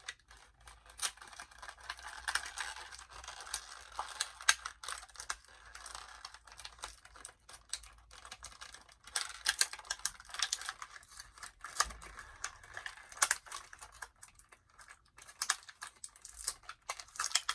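Irregular small clicks, taps and crinkles of plastic toy packaging and small doll accessories being handled.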